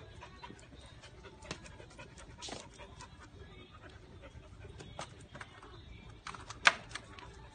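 Dog panting, with scattered faint ticks and short breathy bursts, and one sharp click near the end.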